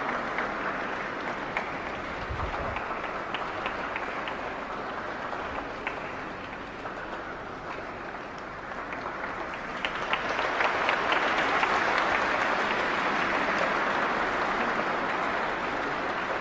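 An audience applauding, many hands clapping steadily; the applause eases off a little midway, then swells louder again about two-thirds of the way through.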